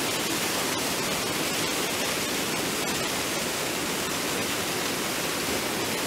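Waterfall pouring down over rock ledges, a steady, even rush of water.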